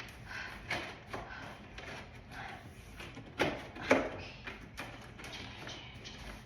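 Packaging handled while a collectible figure is being unboxed: rustling with scattered knocks, the two loudest a little past three and a half seconds and at about four seconds in.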